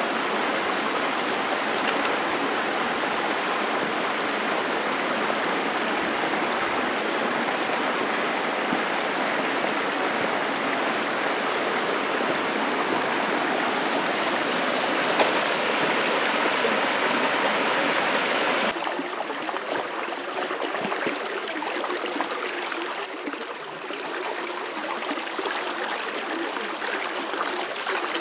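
Creek and small waterfall water running steadily. About two-thirds of the way in, the sound changes abruptly to a quieter, more uneven running.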